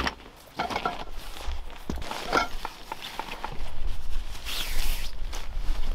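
Footsteps scuffing on gravel and the rustle and swish of nylon tent fabric as a tipi tent is pulled out of its stuff sack, with a few light clicks and knocks of its parts.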